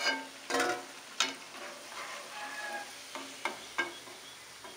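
Perforated stainless steel skimmer clinking against the steel frying pan and plate several times as fried bondas are lifted out of the oil, over a light sizzle of deep-frying oil.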